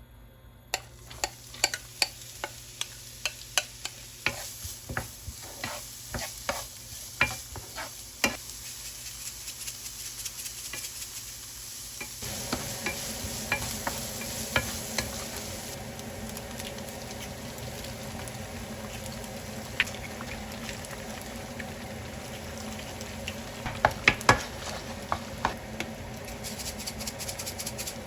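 Egg fried rice stir-fried in a pan: steady sizzling, with a spatula clicking against the pan about twice a second at first. About twelve seconds in, the frying turns fuller and louder, and there are a few more spatula knocks near the end.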